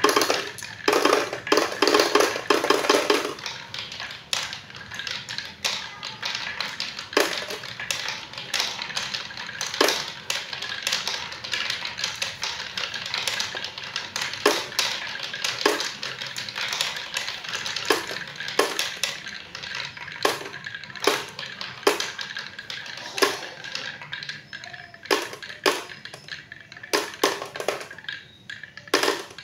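Marbles rolling and clattering down a wooden wavy slope track: a dense rattle of many marbles in the first few seconds, then a steady roll with scattered clicks as fewer marbles are left, fading out at the very end.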